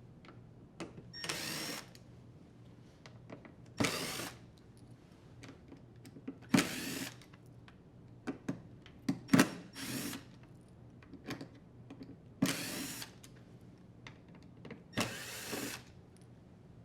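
Drill driver with a Phillips bit backing screws out of a dryer door frame: seven short whirs of under a second each, spaced a few seconds apart. Small clicks and taps from the screws and handling come between the whirs.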